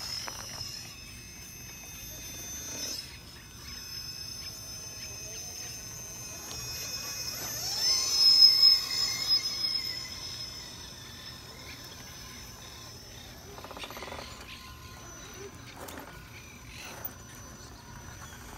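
Electric drive motors and gearing of radio-controlled rock crawlers whining as they climb over rocks. The whine rises and is loudest about eight to ten seconds in, with a few short knocks near the end.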